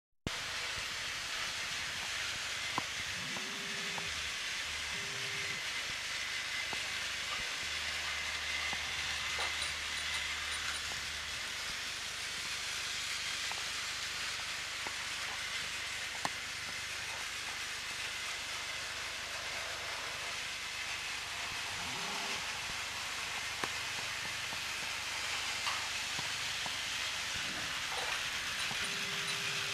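Motorized toy train running steadily, its small electric motor giving a continuous whirring hiss, with a light click about every seven seconds.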